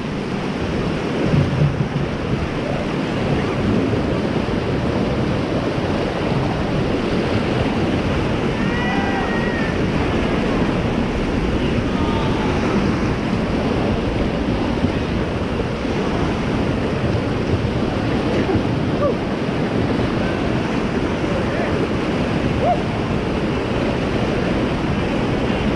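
River rapids rushing steadily: loud whitewater churning right beside a raft.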